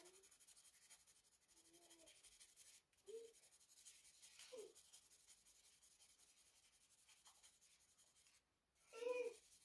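Fine-grit sandpaper rubbed in rapid short strokes on the new bone facing at the tip of a cello bow: a faint, fast scratching that breaks off briefly about three seconds in and again shortly before the end. A short voiced sound comes near the end.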